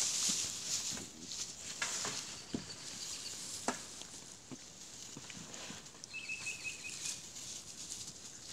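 Straw rustling and crackling as Komondor puppies and an adult Komondor move and nose about in a straw bed, loudest at the start, with scattered light crunches. A brief high chirp sounds about six seconds in.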